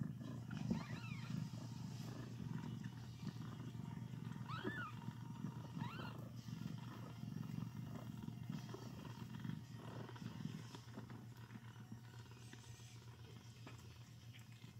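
Mother cat purring steadily close up while her newborn kittens nurse, with a few short, high mews from the kittens about a second in and again around five and six seconds in.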